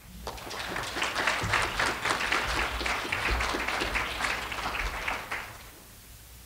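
Audience applauding. Many hands clap, then the clapping fades out about five and a half seconds in.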